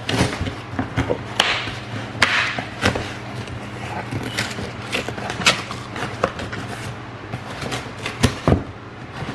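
Corrugated cardboard shipping box being torn open along its perforated pull strip and its flaps pushed back by hand: short rips of cardboard with scattered knocks and scrapes. Two sharp knocks come close together near the end.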